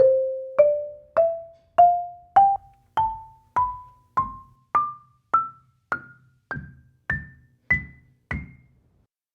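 Marimba played one note at a time, climbing step by step over about two octaves at roughly a note every 0.6 s. Each bar rings briefly after the mallet strike, and the higher notes die away faster. It is an unprocessed recording from microphones beneath the bars.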